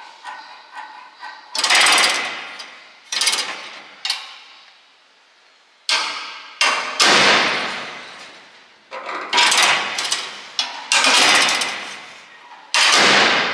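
Steel fuel filler flap on an old van body being pushed open and let go, snapping shut against the panel under its spring with a sharp metallic clack that rings briefly. It snaps about a dozen times, some spaced out and some in quick runs. The flap has only one of its two springs fitted and still slams hard.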